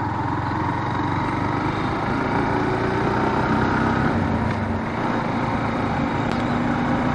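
Motorcycle engine running steadily as the bike is ridden at an even pace, with a constant rush of road and wind noise; the engine note shifts slightly about four seconds in.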